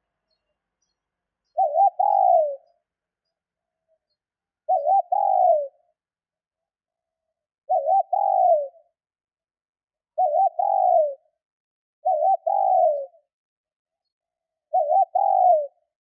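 Female spotted dove cooing: six calls spaced two to three seconds apart. Each is a quick double note followed by a longer falling coo. It is the hen's call that draws and excites male doves.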